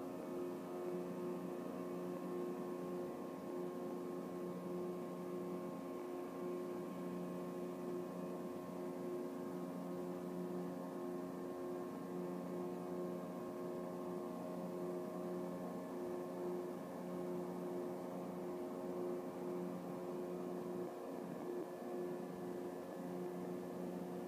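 Steady droning hum of machinery at the Puget Sound Naval Shipyard, pitched between F and F sharp, with a stack of fainter overtones above it.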